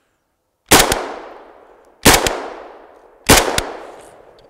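Three single shots from an Arsenal SGL-21-94 AK-pattern rifle firing 7.62x39 ball ammunition, spaced about a second and a quarter apart, each trailing off over about a second.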